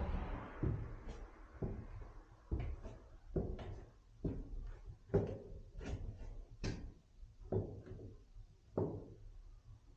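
Footsteps on a steep wooden staircase: a series of short wooden knocks, one to two a second, as the treads are stepped on.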